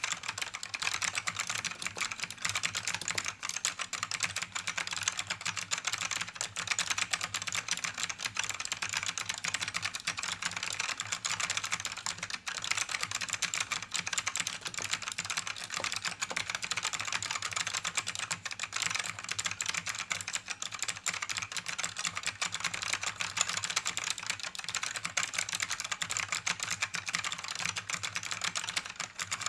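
Fast continuous typing on an ACME KB-108 mechanical keyboard with Alps SKCM "Bamboo" Black switches: a dense stream of sharp key clicks, crisp and click-like.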